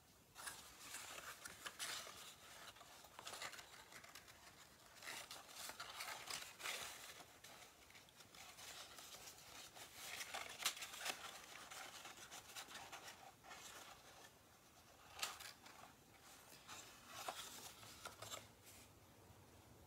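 Faint rustling and scraping of cardstock handled and pressed by hand as it is folded into a box frame, with a few sharper rustles scattered through.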